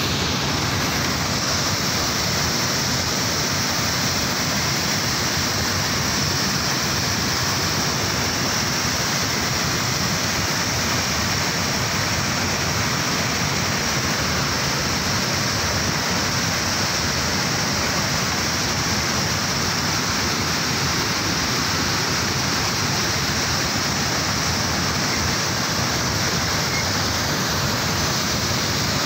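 Water discharging at full force from a hydroelectric dam's spillway gates, a steady, loud rush of churning white water and spray with no let-up.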